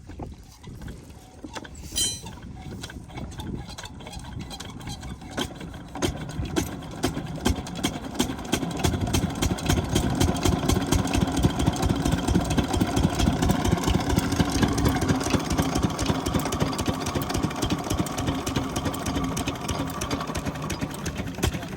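12 hp single-cylinder diesel pump-set engine being turned over and catching: its even beat grows louder over several seconds and settles into a steady run from about nine seconds in.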